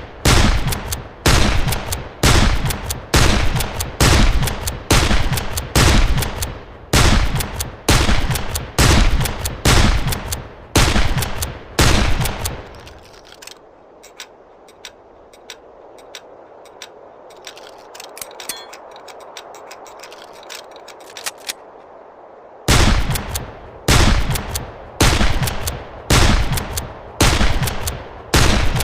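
1860 Henry lever-action rifle (.44 Henry rimfire) firing repeated shots about once a second, each with a short ringing tail. About twelve seconds in the firing stops for roughly ten seconds, leaving faint background noise and a few soft clicks, then the shots resume at the same pace.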